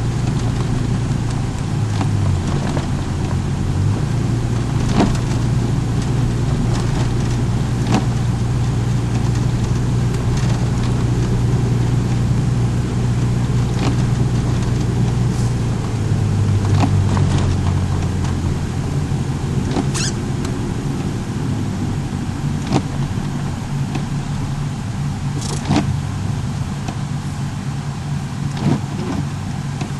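A car driving, heard from inside: a steady engine hum and road noise, with the engine note changing pitch a couple of times. Scattered short clicks and knocks come through over it.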